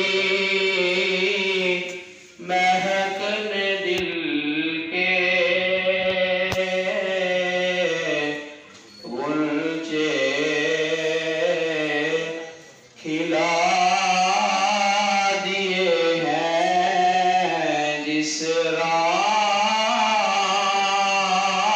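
A man reciting a naat, a devotional Urdu poem in praise of the Prophet, unaccompanied. He sings it in long, drawn-out melodic phrases and pauses briefly for breath three times.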